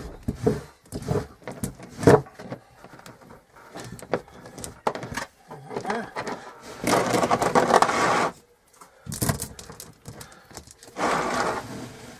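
Irregular clinks and knocks, with two stretches of scraping and rubbing about seven and eleven seconds in: an oil-soaked motorcycle drive chain being handled and wiped down.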